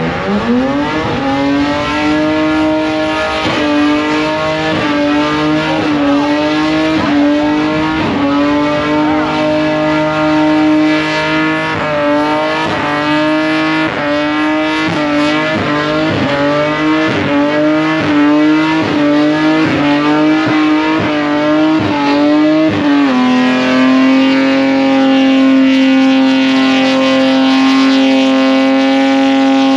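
Burnout car's engine held at high revs, with brief regular dips in revs about once every second or less. About 23 seconds in, the revs drop slightly and then hold steady.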